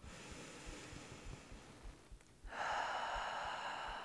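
A woman taking a deep releasing breath: a soft inhale for about two seconds, a brief pause, then a louder, longer exhale from about two and a half seconds in.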